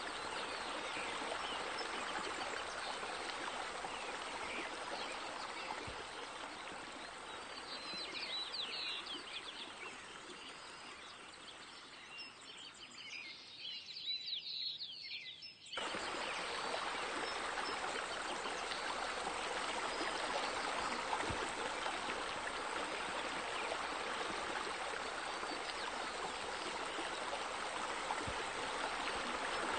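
Steady running, splashing water with birds chirping now and then. The water sound thins out before halfway and returns abruptly about halfway through.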